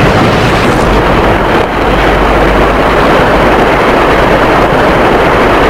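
Motorboat under way at speed: a steady, loud rush of engine and water. In the first second the fading end of a large explosion at sea is still heard.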